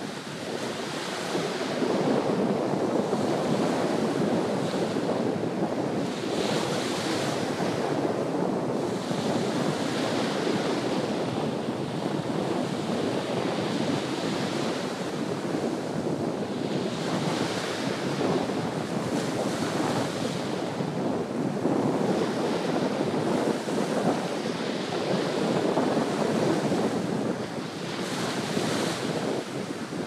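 Small sea waves breaking and washing up a sandy beach: a steady surf rush whose fizzing hiss swells every two to three seconds as each wave runs up the sand.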